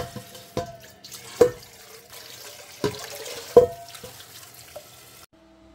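Tap water running over chili leaves and string beans being washed in a sink basin, with several sharp knocks that ring briefly. The sound cuts off suddenly near the end.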